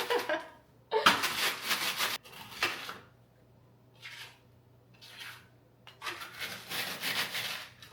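Rolling pin crushing graham crackers on a baking sheet, heard as bursts of crunching and rubbing. The strokes are loudest about a second in and again from about six seconds, with short fainter ones between.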